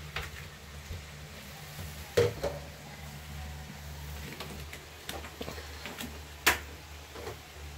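Kitchen handling sounds: a few sharp knocks and clicks of things being put down and moved, two louder ones about two seconds in and about six and a half seconds in, over a steady low hum.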